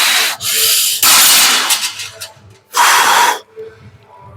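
Three loud, hissing breaths blown out hard close to the microphone, each lasting under a second, as a lifter strains through a heavy set.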